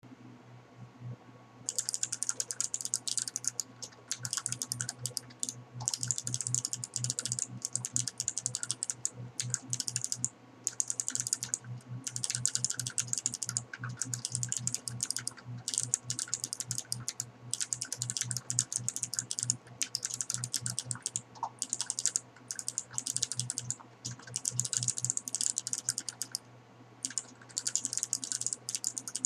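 Fast typing on a computer keyboard: rapid key clicks in runs of a second or two with short pauses between them, starting about two seconds in.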